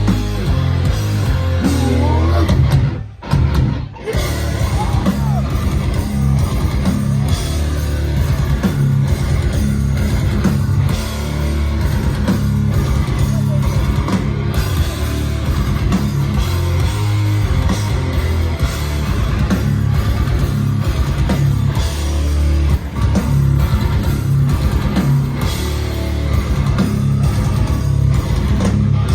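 Heavy hardcore band playing live, with loud distorted guitars, bass and drums and some vocals. The music cuts out briefly twice, about three and four seconds in.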